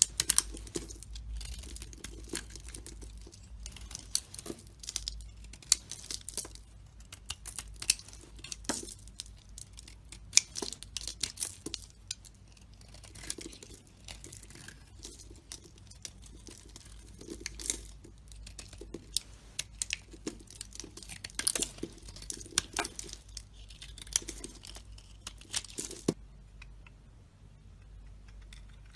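A knife carving and scraping dry bar soap: a run of crisp, crackly cuts and scrapes with a few sharper snaps. The cutting stops about three seconds before the end, leaving only a faint hush.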